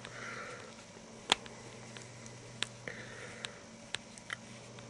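Small T6 Torx screwdriver turning tiny screws out of a mobile phone's case: faint scratching with a sharp click about a second in and several lighter ticks after.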